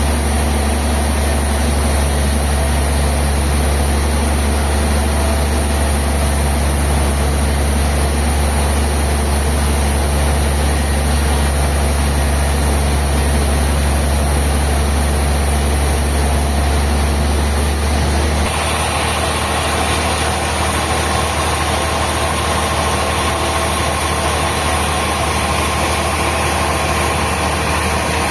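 Sawmill machinery running steadily with a strong low engine drone. After about eighteen seconds the low drone drops and a higher whirring comes to the front.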